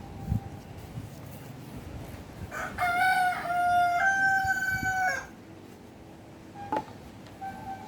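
A loud crowing call, held in a few steady-pitched steps for nearly three seconds, about two and a half seconds in; a short knock follows later.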